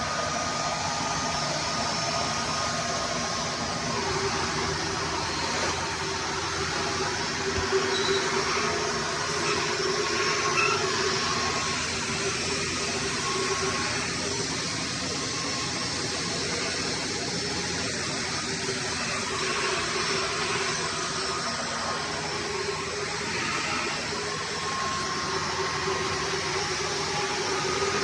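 Hoover Runabout Deluxe vacuum cleaner running steadily, its motor whine over the rush of suction airflow, the pitch wavering slightly as it is used.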